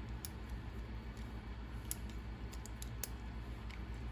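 Light, scattered clicks of small RC car parts and tools being handled, over a steady low hum.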